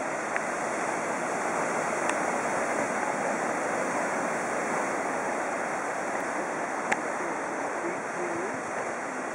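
Ocean surf breaking and washing over rocks along a rocky shore, a steady rushing noise. A few short sharp clicks sound over it, the loudest about seven seconds in.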